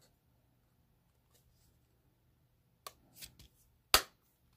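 A handheld heart-shaped hole punch clicks shut through the corner of a gift card, one sharp snap near the end. A few quieter clicks and rustles come before it.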